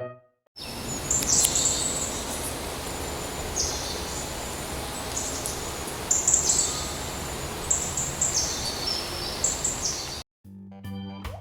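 Repeated short, high-pitched chirps from a small young animal over a steady hiss of background noise, cutting off abruptly near the end, where organ music begins.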